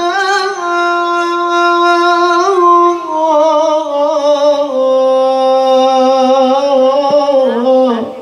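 A male qori reciting the Quran in the melodic tilawah style, solo and unaccompanied. He holds long notes with wavering ornaments, and his pitch steps down in stages, falling away near the end.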